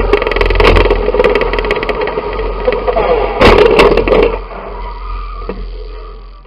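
Banger racing car's engine running hard under full throttle, heard from inside the stripped-out cabin, with body panels rattling and sharp knocks of contact, the loudest pair about three and a half seconds in. After that the engine noise dies away as the car slows.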